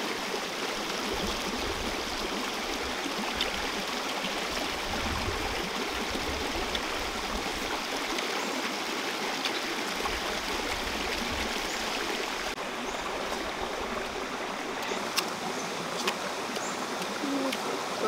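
A small rocky stream running steadily over stones, with a few light clicks in the last few seconds.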